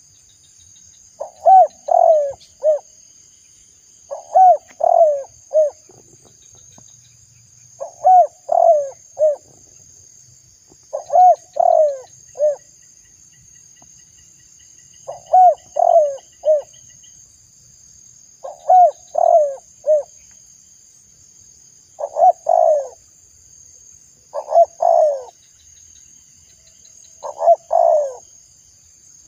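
Spotted dove (tekukur) cooing: a phrase of three or four coos repeated about every three seconds, nine times. A faint steady high insect drone runs behind it.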